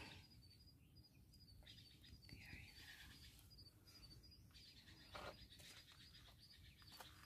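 Near silence with faint, high-pitched chirps repeating evenly, a short falling call a little over two seconds in, and a faint tap about five seconds in.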